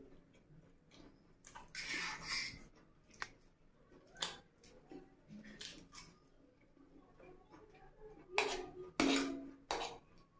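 Metal fork clinking and scraping against plates during eating, in scattered sharp clicks. The loudest scrapes come near the end, when the fork digs into noodles on a steel plate.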